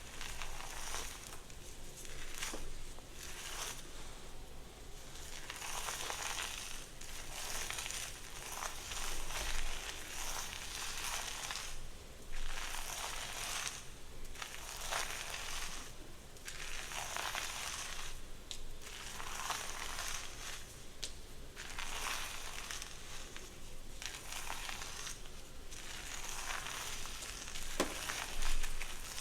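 Slow, repeated strokes through hair, each a crackling rustle lasting a second or two, coming about every two seconds.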